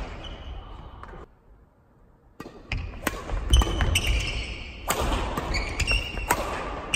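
Badminton doubles rally in a large gymnasium. Rackets strike the shuttlecock in sharp pops, and court shoes squeak and thud on the wooden floor. A brief lull after about a second, then the play picks up again.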